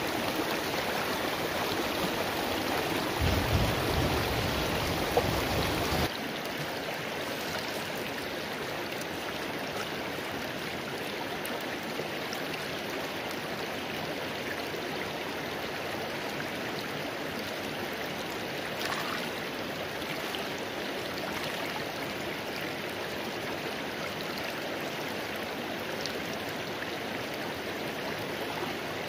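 Shallow rocky mountain stream running over stones, a steady rush of water; it drops slightly in level about six seconds in.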